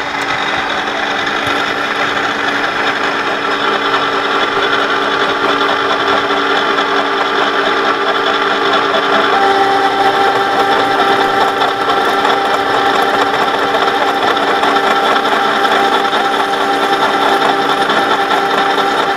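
Conventional milling machine's spindle running as an 18 mm four-flute HSS end mill is hand-fed down, plunge-cutting into ST 41 steel: a steady mechanical hum with several held tones. A higher tone joins about halfway through and the sound gets slightly louder.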